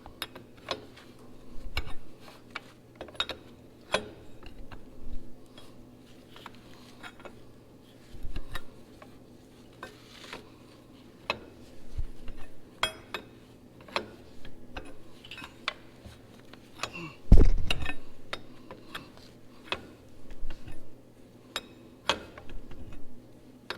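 Wrench and metal parts clinking and knocking irregularly as bolts are worked on a tractor's fan mounting, with one heavier metal knock partway through.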